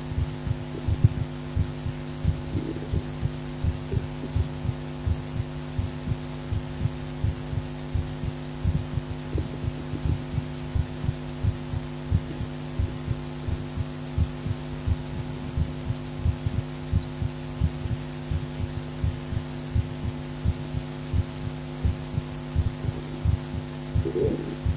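Human heartbeat heard through a stethoscope: low thuds in a steady rhythm, over a steady low hum.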